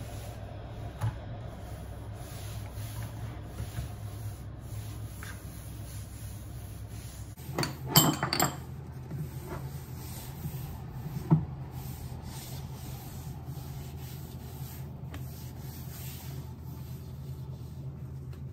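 Cloth rubbed by rubber-gloved hands over a kitchen worktop and a glass-ceramic hob, a soft steady wiping. A short clatter of knocks comes about eight seconds in, and a single sharp knock a few seconds later.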